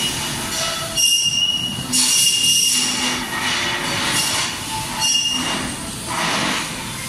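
A hand pressing and rubbing the touch buttons of a bathroom mirror cabinet's LCD clock panel through its plastic protective film. A high-pitched squeal-like tone comes twice, about a second long the first time and briefly the second, with scratchy rustling between.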